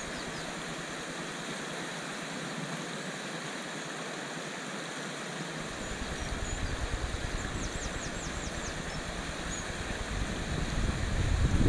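Water pouring steadily over a river weir, an even rushing hiss. A low rumble joins it about halfway through, and a quick run of about six high chirps sounds near the end.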